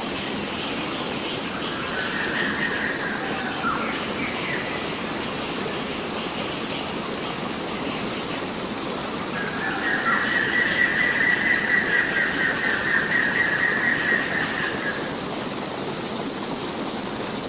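Steady rush of flowing water with a wild bird calling over it: a short call about two seconds in, then a long, fast trill from about ten to fifteen seconds in.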